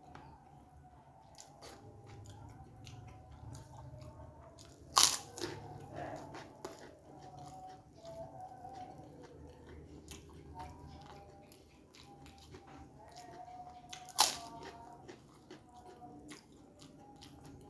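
Biting into a crisp fried kerupuk cracker with a loud crunch twice, about five seconds in and again near fourteen seconds, with close-up chewing and small crackles of the cracker in the mouth in between.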